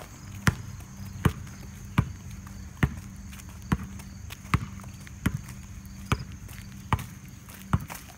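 Footsteps on a hard asphalt and concrete path at a steady walking pace, a little over one step a second, each step a distinct tap. A faint steady hum and a thin high steady tone sit underneath.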